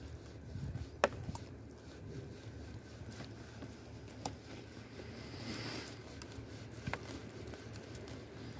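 Faint rustling of a hand stroking an animal's fur, with a few sharp clicks, the loudest about a second in.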